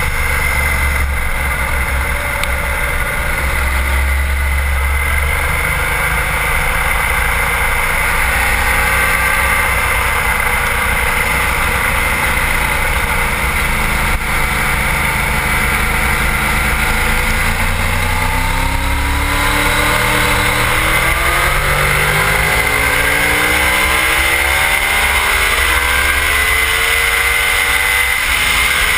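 Sport motorcycle engine running at track speed, heard from a camera on the fairing with heavy wind rush over the microphone. The engine pitch dips for a moment past the midpoint, then climbs steadily as the bike accelerates.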